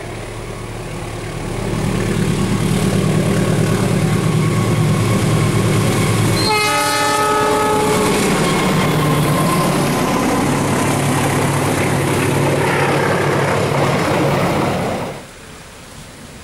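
Diesel locomotive hauling a passenger train running close by, its engine loud and steady with rail noise. About six seconds in, the locomotive's horn sounds for a second or two. The sound drops suddenly near the end.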